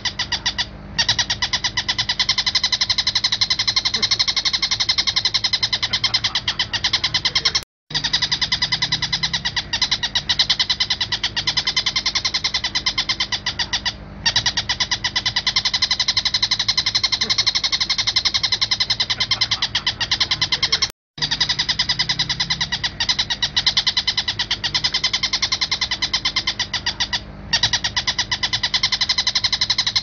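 Recorded song of an Oriental dollarbird (tengkek buto): a rapid chattering of fast repeated notes, broken by a few short pauses, including two brief silent gaps about eight and twenty-one seconds in.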